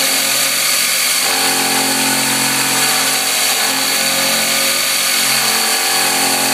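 CNC milling machine cutting steel: a 7/16-inch roughing carbide end mill circling and ramping down into unhardened 1045 plate steel on a roughing pass. A steady mix of whining motor tones and cutting noise, the tones shifting pitch a few times as the machine changes its moves.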